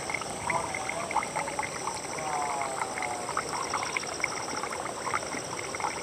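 Outdoor evening ambience: insects trill steadily at two high pitches while frogs call in short, repeated croaks, with a few longer falling calls near the middle.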